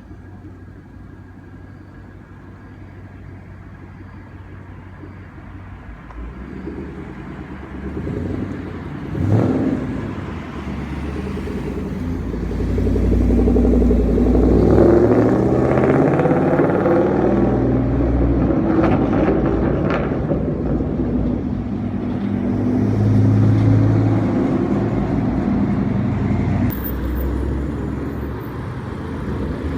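Ford Mustang GT 5.0 V8 running through a loud aftermarket exhaust. It starts faint and builds, with a quick rev about a third of the way in, then stays loud for about fifteen seconds while the engine note rises and falls, easing off somewhat near the end.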